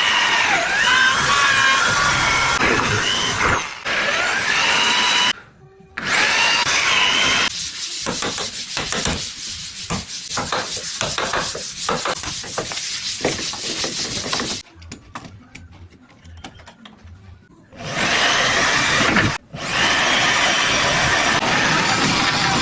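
Wood being worked with tools in several short stretches: a tool running with a wavering whine at the start and near the end, and in the middle a fast run of rubbing or sawing strokes on wood.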